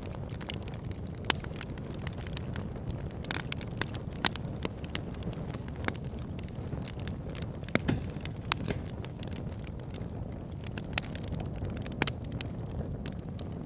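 Wood fire burning in a fireplace: a steady low rush under frequent sharp crackles from the burning logs, with a few louder pops among them.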